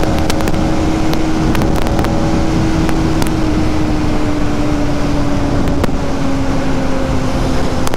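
Bajaj Pulsar NS200's single-cylinder engine running at a steady cruise, its pitch falling slowly as the rider eases off. Wind rushes over the helmet microphone.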